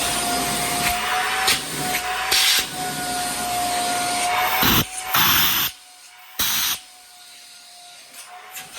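Hoover Air Steerable upright vacuum running in tool mode, sucking air through its hose: a steady motor whine under loud rushing airflow that surges several times. About six seconds in the airflow noise drops away sharply, returns briefly, then falls away again, leaving the whine.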